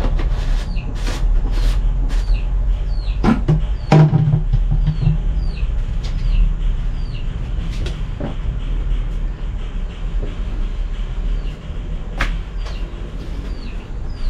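A blue plastic jerrycan and its screw cap handled by hand: a few sharp plastic knocks in the first four seconds and one more about twelve seconds in, over a steady low rumble. Throughout, a bird gives short falling chirps about twice a second.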